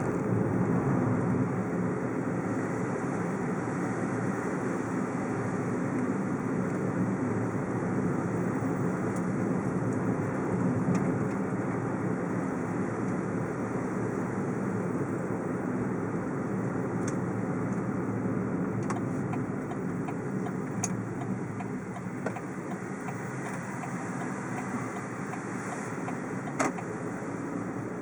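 Steady rumble of engine and road noise inside a moving car, with a few faint clicks and taps in the second half.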